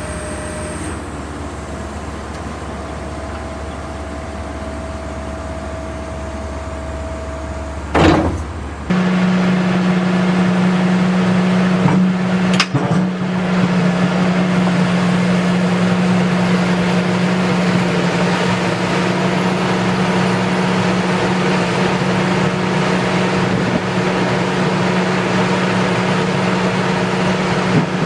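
Excavator engine and hydraulics running. A sharp knock comes about eight seconds in, after which the running sound steps up to a louder steady hum. Another knock follows a few seconds later.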